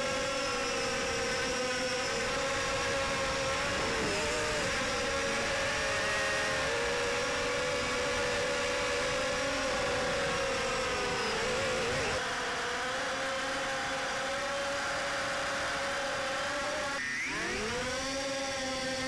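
Hermit micro quadcopter's motors and propellers whining close up, heard from its onboard camera, the pitch wavering with the throttle. About three quarters of the way through, the pitch drops sharply and then climbs back up.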